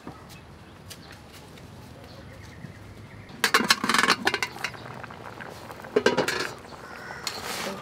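Metal tongs clanking against an aluminium pot lid as the lid is lifted off the pot, in bursts of sharp clatter starting about halfway through, again about a second and a half later, and once more near the end.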